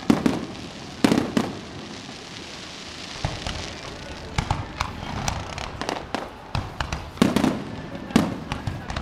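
Aerial fireworks shells bursting: several loud booms, the biggest near the start and again near the end, with smaller pops and crackling between them.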